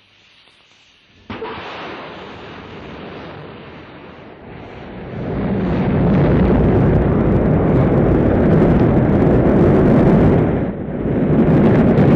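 Rocket engines firing at launch: a sudden burst of noise about a second in, then a deep rumble that swells over the next few seconds and stays loud, with a brief dip near the end.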